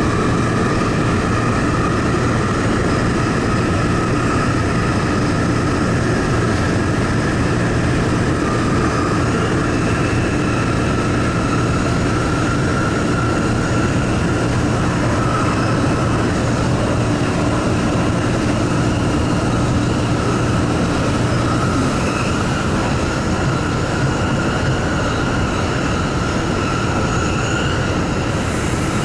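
Sendai Subway Tozai Line 2000 series linear-motor train running at speed through a tunnel, heard from the cab: a steady rumble with a thin high whine over it.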